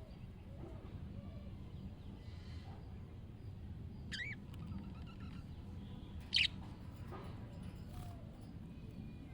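Budgerigar chirping: a short chirp about four seconds in and a louder, sharper chirp about two seconds later, with a few faint calls between, over a steady low rumble.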